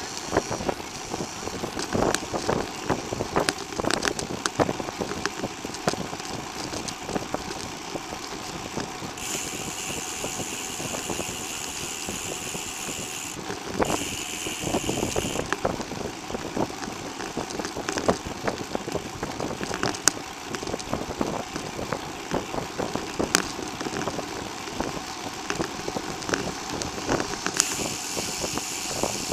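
Bicycle riding along a paved path, heard from a handlebar-mounted camera: steady rushing wind and tyre noise with frequent small rattles and knocks. A high steady buzz comes in twice in the middle and again near the end.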